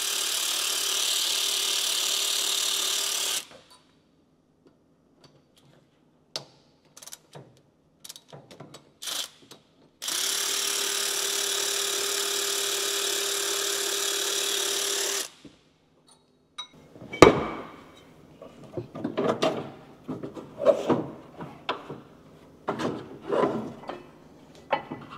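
Cordless ratchet running on a bolt at a tractor's fan drive pulley, in two long runs of steady motor whir, the first stopping about three seconds in and the second lasting about five seconds. From about 17 seconds on come sharp clicks and knocks of metal parts being handled.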